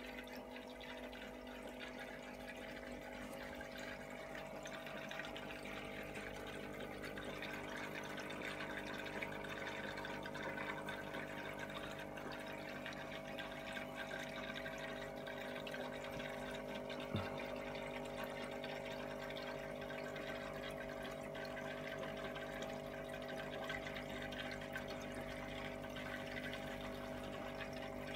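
Aquarium filter running: water trickling and splashing steadily over a constant motor hum. A single soft knock about two-thirds of the way through.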